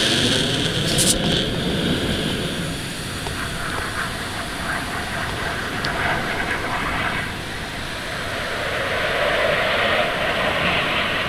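Jet engine noise from Thunderbirds F-16 fighter jets flying low, a steady rushing sound that eases off in the middle and swells again near the end.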